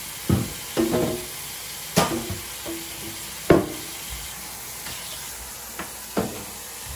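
Tap water running steadily into a stainless steel kitchen sink, with about six knocks and clunks from boards being handled in the sink, some with a short ring. The loudest come about two and three and a half seconds in.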